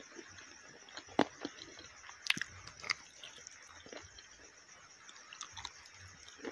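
Close-miked chewing and biting of sauce-coated fried food: wet mouth sounds with a few sharp clicks. A steady hiss of rain runs underneath.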